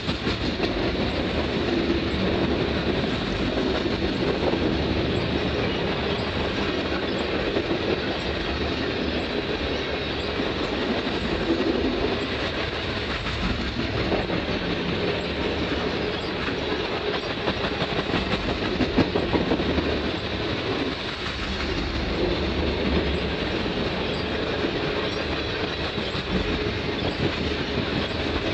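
Coal hopper cars of a freight train rolling past, their steel wheels clicking over the rail joints in a steady run of clickety-clack over a continuous rolling noise.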